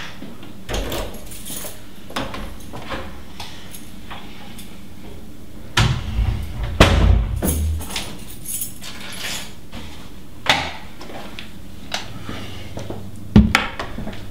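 Handling of a door: scattered clicks and knocks, a louder cluster of thumps about six seconds in and a sharp knock near the end, over a steady low hum.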